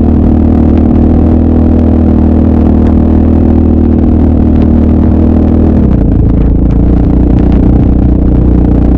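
Yamaha sport ATV's single-cylinder four-stroke engine running loud at steady revs, then dropping to a lower note about six seconds in as the throttle eases.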